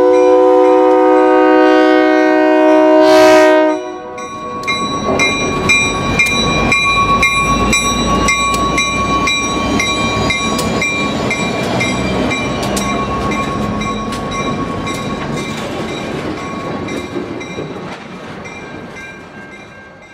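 Train horn sounding a chord of several notes for about three and a half seconds, then cutting off as the train rolls past with rapid wheel clicks and a few thin steady tones, slowly fading away.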